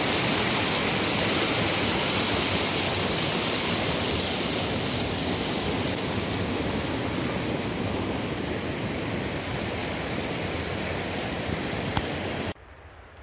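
Rushing water of a mountain stream, a steady full rush that eases slightly over the seconds, then cuts off abruptly near the end to a much quieter background.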